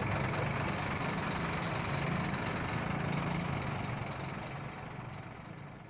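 Scania P310 fire truck's five-cylinder diesel engine idling steadily. It fades out near the end.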